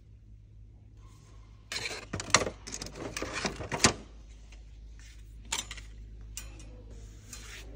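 Plastic kitchen utensils clattering and knocking against each other and the shelf as they are picked up and put back: a busy rattle of about two seconds with two sharp knocks, then a few single clicks.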